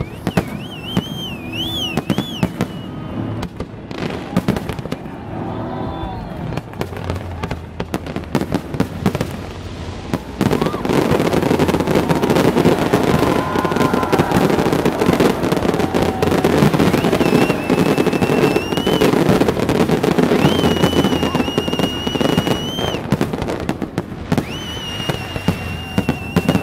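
A fireworks display exploding with repeated bangs and crackling. About ten seconds in the barrage grows louder and denser. Several high whistles, each lasting a second or two, sound over it near the start and again in the second half.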